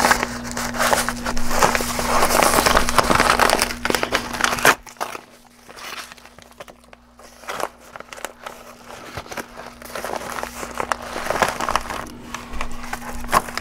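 Yellow padded paper mailer being torn open and crumpled by hand, dense crinkling and crackling that eases off about five seconds in. The clear plastic zip bag of parts crinkles near the end. A steady low hum runs underneath.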